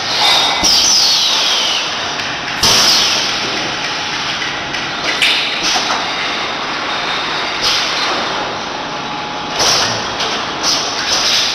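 Pneumatic piston filling machine for thick sauce running, over a steady mechanical noise. Sharp hisses of exhausting air, some falling in pitch, come every couple of seconds as its air cylinders shift the filling valves.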